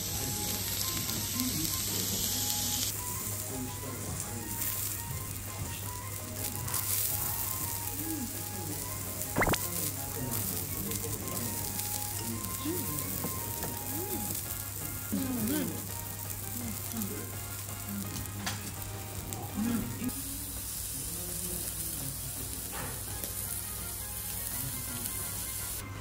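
Ezo sika deer steak and vegetables sizzling steadily on a small tabletop grill plate, with faint background music and a single sharp tap about a third of the way in.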